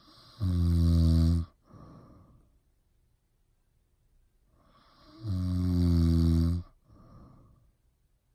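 Snoring: two loud, deep rattling snores about five seconds apart, each followed by a shorter, softer breath.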